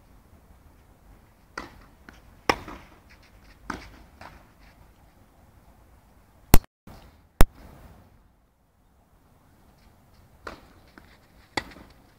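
Tennis balls being struck by rackets and bouncing on a clay court in an enclosed hall, heard as a string of sharp pops with a short echo. Two knocks about two-thirds of a second apart, a little past the middle, are much louder than the rest.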